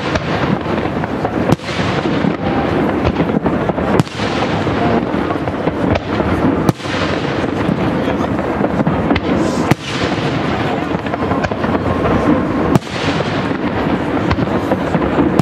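Aerial fireworks shells being fired and bursting in a display, with a sharp bang every two to three seconds over a steady din of crowd voices.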